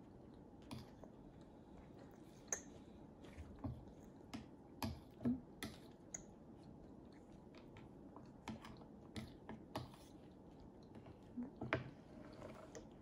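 Light, irregular clicks and taps of a small spoon against a bowl as rice is scooped, mixed with a toddler's chewing and lip smacks.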